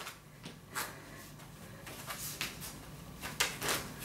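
Trainers tapping and scuffing on an exercise mat as the feet tap out and back in during a glute bridge: a handful of short soft strokes, some in pairs, about a second apart.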